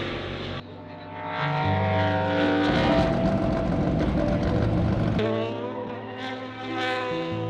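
Race car engines running in short clips spliced together, with abrupt changes less than a second in and about five seconds in. Between the cuts an engine climbs in pitch as it accelerates.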